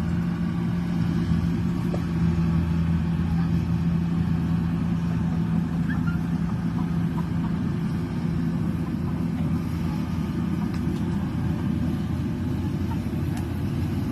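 Rice harvester's engine running steadily at working speed: a constant low drone with no breaks.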